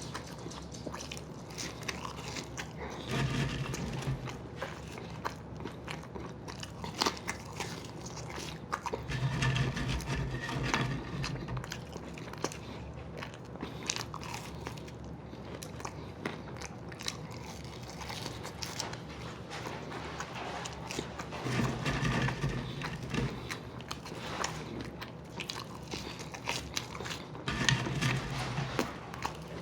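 People eating a McDonald's burger-and-fries meal quickly, close to the microphone: chewing, biting and crunching with many small wet clicks, and a few louder stretches of muffled chewing.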